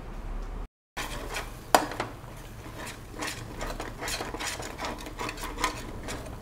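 A spoon stirring and scraping ground coconut masala as it fries in a metal pan, with irregular clinks and scrapes against the vessel, one sharp clink at about two seconds. The sound cuts out for a moment just before one second.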